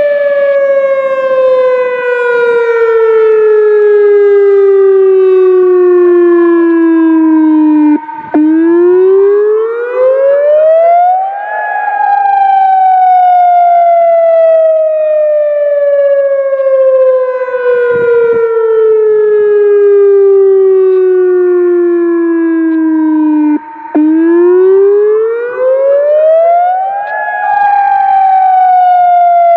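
ATI HPSS-32 electronic outdoor warning siren sounding the wail signal for its monthly test. The loud tone falls slowly in pitch for about twelve seconds, then rises again over about three seconds, twice in all, with a brief break at the bottom of each fall.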